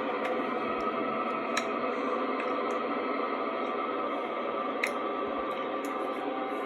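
Steady drone of an Airbus A321's jet engines idling at the gate, with a few faint clicks.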